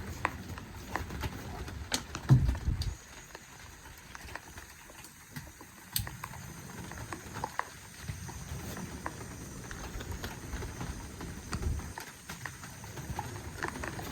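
Irregular taps and knocks, with a short cluster of louder low thumps about two and a half seconds in.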